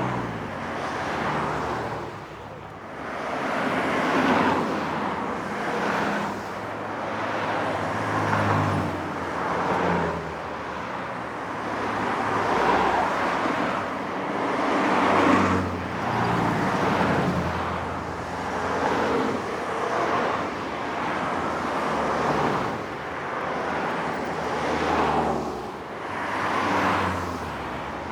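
Highway traffic: a steady stream of cars passing one after another, tyre and engine noise swelling and fading every couple of seconds.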